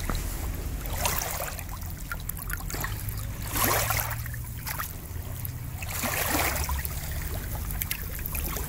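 Small waves of the Aegean Sea washing onto the shore: three surges of swash, one about every two and a half seconds, over a steady wash of water.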